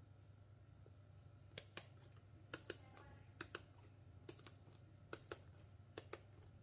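Kitchen shears snipping through a fish's fin: faint, crisp clicks in pairs, about six snips in a row, starting about a second and a half in.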